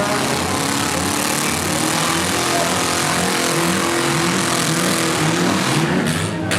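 Several four-cylinder demolition derby cars' engines running at once, with some revving up partway through, over a steady hiss.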